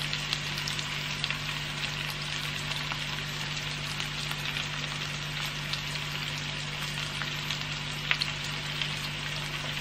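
Onions and mushrooms sautéing in oil in a frying pan: a steady sizzle with light scattered crackles and a sharper tick about eight seconds in, over a steady low hum.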